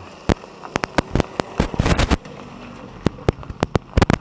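A string of firecrackers going off: rapid, irregular sharp bangs in bunches, with a short lull a little past the middle.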